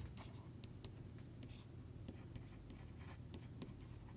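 Faint scratching and light ticking of a stylus writing on a pen tablet, with a low steady hum underneath.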